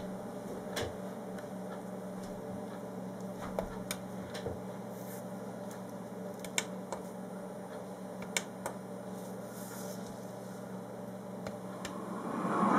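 A steady low hum with a handful of sharp clicks of gamepad buttons being pressed. Near the end a computer-simulated diesel locomotive engine sound is switched on and comes up from the speakers.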